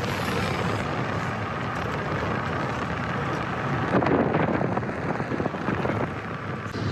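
Road and wind noise from a moving vehicle, with wind buffeting the microphone; it gusts louder about four seconds in.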